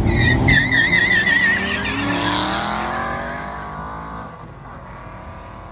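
Drag launch of a Hyundai i30N and an Aston Martin Vantage: tyres squeal with a wavering pitch over the engines for the first second and a half, the i30N having launched with its handbrake still up. The engines then rev up rising in pitch and fade as the cars pull away down the strip.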